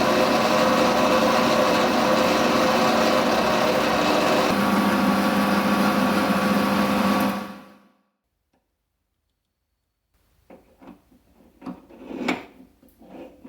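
A workshop power tool's electric motor running steadily for about seven seconds, then switched off and spinning down. After a short silence there are a few light knocks and clicks.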